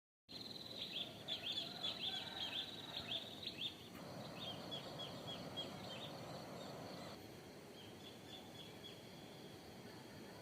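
A small bird calling in three quick runs of short, high, downward-sliding notes, the first run the longest, over a faint steady hiss.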